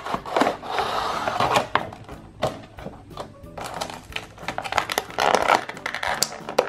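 Clear plastic blister packaging crinkling and clicking as a toy box is opened by hand, in irregular bursts, over background music.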